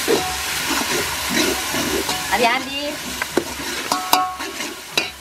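A long metal spatula stirring and scraping chopped tomatoes, chillies and onions as they fry in oil in a large metal pot. Steady sizzling runs throughout, with sharp clicks of the spatula against the pot, several of them around the middle.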